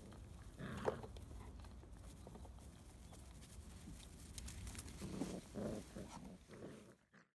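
Labrador puppies' small vocal sounds: a short yip about a second in, then a few short soft whines or grunts, over faint rustling of dry grass; the sound fades out just before the end.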